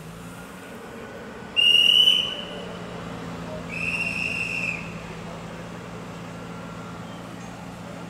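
Two blasts of a railway staff's hand whistle, a sharp loud one and then a softer, longer one, typical of the departure signal given to a train standing at the platform. A steady low hum from the waiting electric train runs underneath.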